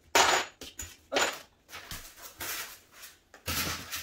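Plastic protective wrapping rustling and crinkling in several short bursts as flat-pack furniture parts are unwrapped, the loudest burst right at the start.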